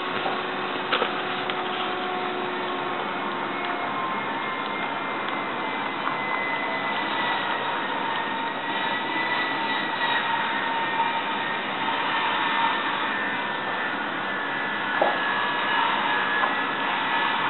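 Steady whirring noise with faint tones that drift slowly in pitch, and a few light clicks as a puppy eats kibble from a food bowl.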